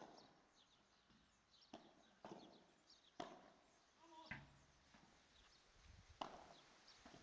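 Padel rally: the ball is struck back and forth by the rackets, making faint sharp knocks about six times at uneven intervals.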